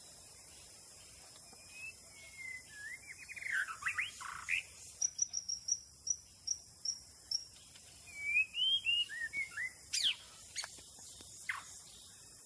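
Birds calling outdoors: sweeping whistled notes, a quick run of short high chirps at about three to four a second, and a few sharp falling notes near the end, over a steady high insect drone.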